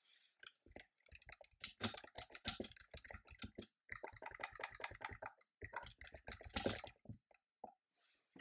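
Computer keyboard being typed on in fast runs of keystrokes, with short pauses between runs.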